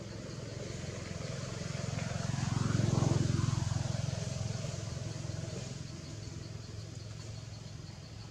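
A motor vehicle passing by. Its engine and tyre noise swell to a peak about three seconds in, then fade away.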